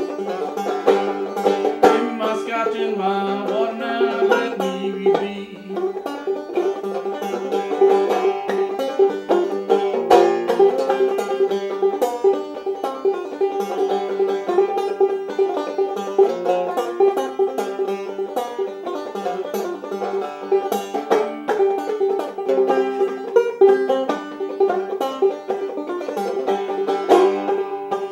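Five-string banjo played solo in old-time knock-down style, a downstroke picking style akin to clawhammer: a fast, unbroken stream of plucked and struck notes with one note ringing steadily underneath.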